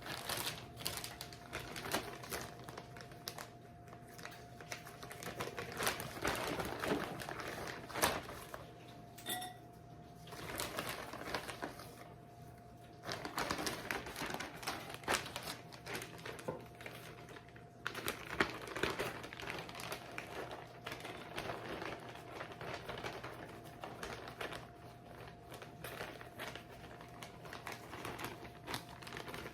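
Kitchen food-prep noise: rapid, irregular clicking and crackling in bursts with short lulls, over a steady faint hum.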